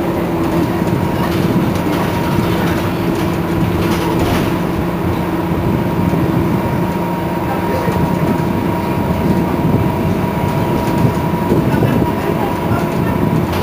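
Iveco Crealis city bus running, a steady whine over a dense road rumble. The rumble grows heavier in the second half, and the whine fades out near the end.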